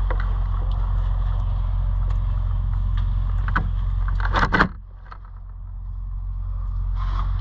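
2001 Polaris RMK 700 snowmobile's two-stroke twin engine idling at a steady pitch, with light clicks and scrapes of handling over it. About four and a half seconds in there is a short loud clatter, after which everything but the engine's low hum briefly falls quiet before coming back.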